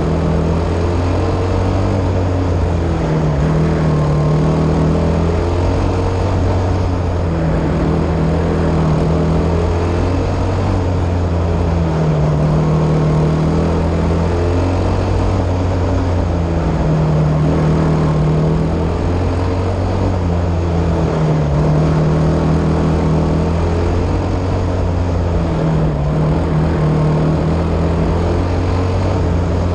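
Single-cylinder Briggs & Stratton Animal four-stroke engine of a caged dirt-track kart racing at speed. It revs up and holds on each straight, then drops back through each turn, repeating about every four to five seconds.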